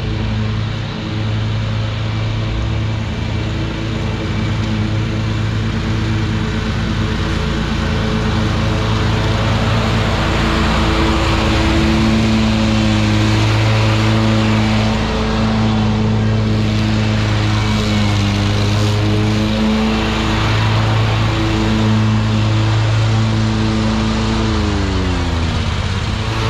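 Wright stand-on mower's engine running steadily under mowing load, getting louder as it passes close by about halfway through; near the end its pitch drops.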